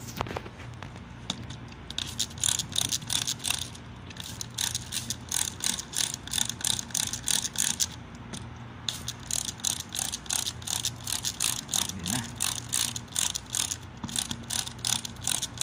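Plastic hand trigger spray bottle squeezed over and over, about three to four quick spritzes a second, misting water onto seedlings; it stops for about a second near the middle, then goes on.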